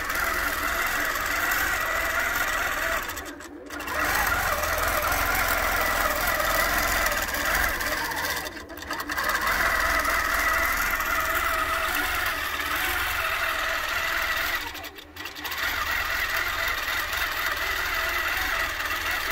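Grace Qnique 15 longarm quilting machine stitching a pattern under computer-guided automation: a steady, fast mechanical sewing sound that dips briefly three times.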